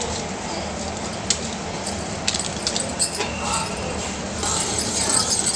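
A steel spoon clinking and scraping against a steel saucepan as it stirs coffee into milk, with a few light clicks at first and a fast run of clinks near the end.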